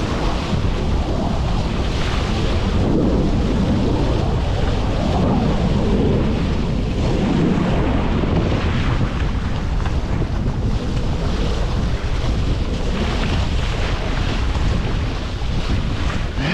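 Water rushing and splashing along the wooden hull of a proa sailing fast on a reach, mixed with steady wind buffeting the microphone.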